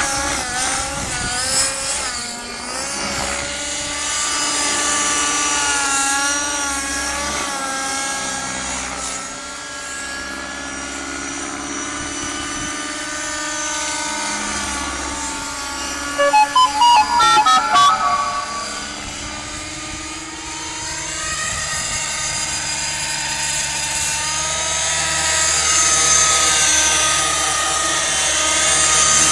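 Align T-Rex 600N nitro RC helicopter in aerobatic flight: the glow engine's high whine and the rotor noise keep rising and falling in pitch. A little past halfway comes a brief run of loud, rapid choppy pulses.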